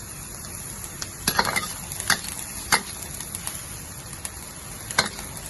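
A cooking utensil stirring a thickener into boiling sauce in a pan, over a steady bubbling hiss, with several sharp knocks and scrapes against the pan.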